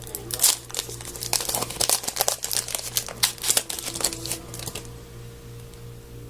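Trading card packs and cards being handled: crinkling of wrappers and quick clicks and snaps of cards, dying down about five seconds in. A steady low hum and faint held tones sit underneath.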